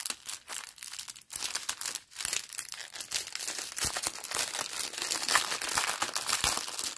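A strip of small sealed plastic bags of diamond-painting drills crinkling and rustling as it is handled, in a dense, irregular run of crackles.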